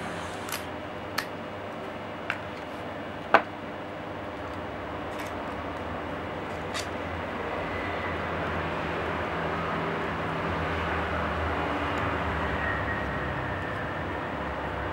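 A few short, sharp clicks and taps of laptop parts being handled while an SSD is fitted, the loudest about three seconds in, over a steady background hum.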